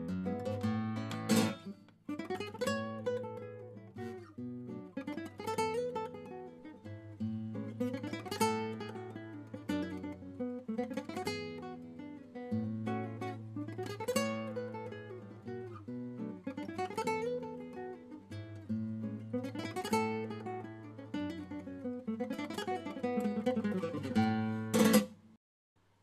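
Alhambra Z-Nature acoustic guitar played solo: a repeating arpeggio pattern of notes climbing and falling over a held bass note, cycling about every three seconds. A sharp strum comes about a second in and another near the end, and then the sound cuts out briefly.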